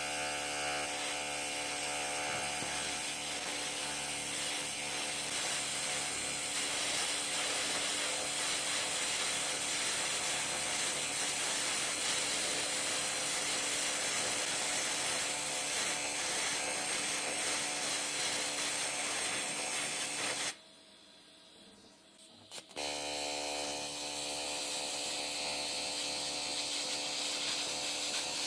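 TIG welding arc burning steadily with a dense, even buzz while filler rod is fed in by hand. The arc cuts out about two-thirds of the way through, sputters briefly, and is struck again about two seconds later.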